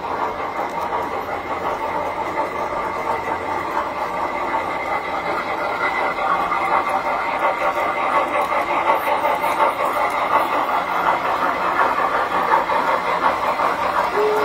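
Tinplate model trains, among them a Lionel steam locomotive, running on metal track: a steady rattling clatter of wheels and motors that grows a little louder about six seconds in.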